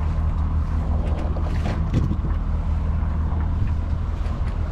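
Wind buffeting the microphone and sea water moving past the hull of a sailboat under way, over a steady low rumble, with a few faint clicks about two seconds in.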